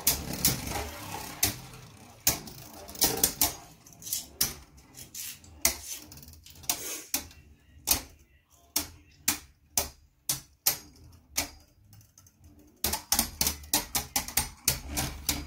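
Two Beyblade Burst Hypersphere spinning tops, Wizard Fafnir and Ace Dragon, battling in a plastic stadium. They collide again and again in irregular sharp plastic clacks, with a dense flurry of hits near the end.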